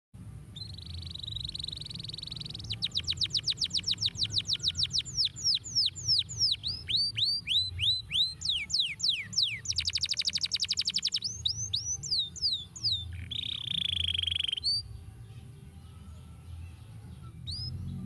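A domestic canary sings a long, varied song. It opens with a buzzy trill, breaks into fast runs of repeated falling whistles, then slower falling notes, another rapid trill and a harsher buzzing phrase. It pauses for a few seconds near the end, then starts singing again.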